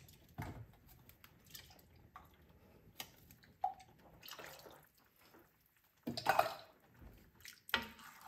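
Broth poured from a tin can into a pot of tomato soup, splashing, with a few short knocks of the can and a wooden spoon against the pot. The loudest pour-and-splash comes about six seconds in.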